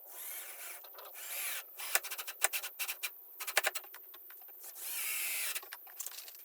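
Tools working on wood: short stretches of rubbing or grinding noise, with a quick run of sharp clicks and taps in the middle.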